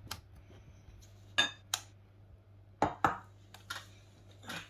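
Kitchen utensils knocking and clinking against a mixing bowl, several separate clinks spread unevenly, as water is added to pancake batter.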